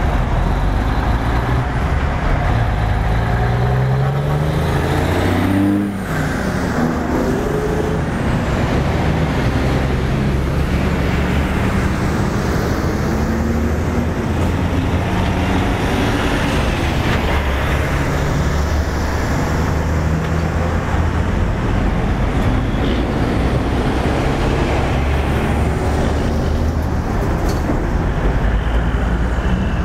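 Heavy diesel trucks driving past one after another, engines pulling away with a note that rises in steps. The engine sound breaks off briefly about six seconds in, then climbs again.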